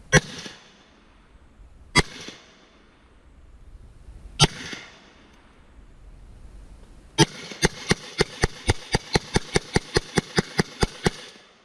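Gunshots from a semi-automatic firearm: three single shots about two seconds apart, then a rapid string of about seventeen shots at roughly four a second, fired as fast as the trigger can be pulled.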